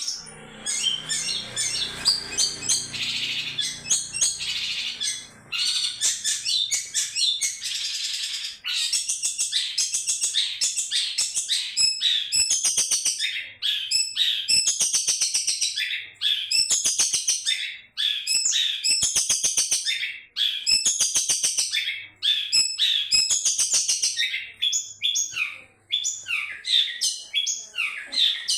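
Long-tailed shrike singing almost without pause: a loud, varied, high-pitched chattering song made of short phrases of rapidly repeated notes, with quick dry clicks running through them.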